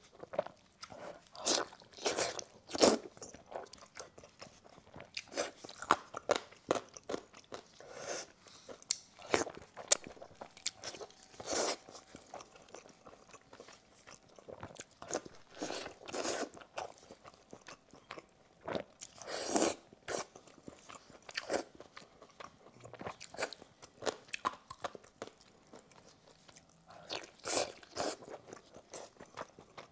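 A person biting and chewing close to the microphone while eating stewed lamb pulled off the bone by hand. Irregular sharp bites come every second or two, with quieter chewing between.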